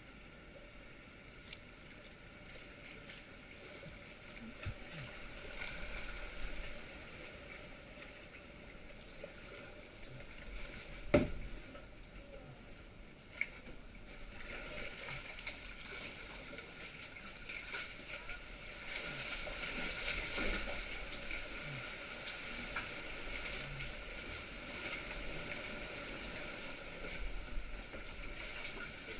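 Sea kayak being paddled along sea cliffs and into a sea cave: water sloshing and lapping against the hull and rock, with paddle strokes. There is a single sharp knock about eleven seconds in and a smaller one a couple of seconds later.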